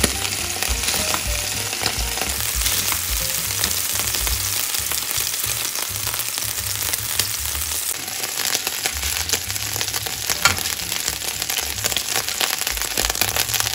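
Beef cubes searing in hot olive oil in a frying pan: a steady, dense sizzle with frequent sharp pops of spitting oil.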